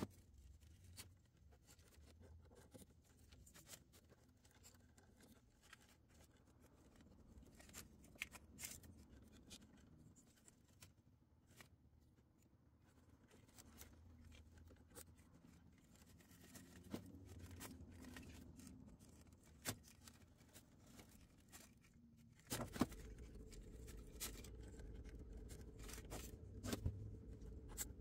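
Faint clicks and rustles of wire terminals being handled and pushed onto a furnace control board. About 22 seconds in, a steady low hum starts abruptly.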